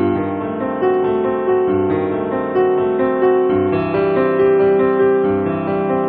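Background music: a piano piece with notes played one after another and left to ring over each other.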